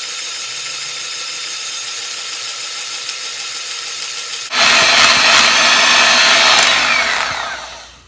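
Electric hand mixer with twin beaters whipping cream in a plastic bowl, its motor running steadily. About four and a half seconds in it gets suddenly louder, then near the end it winds down with a falling pitch.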